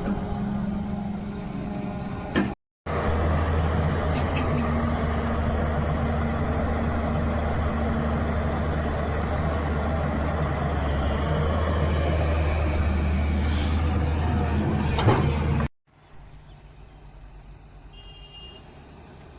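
Excavator diesel engine running steadily with a low engine note, broken by two abrupt cuts; the long middle stretch is the loudest and the last few seconds are much quieter.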